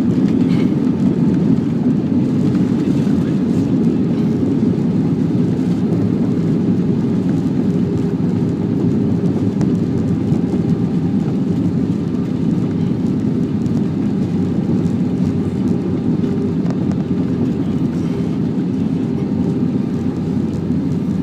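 Inside the cabin of a jet airliner rolling along the runway after touchdown: a steady, loud rumble of the engines and of the wheels on the runway, easing slightly toward the end as the aircraft slows.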